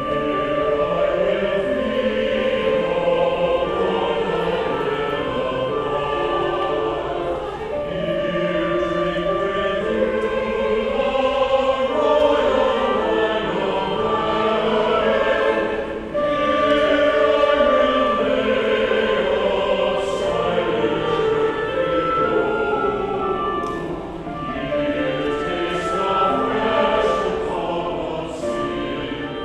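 Church chancel choir singing in sustained chords, with a brief break just past halfway.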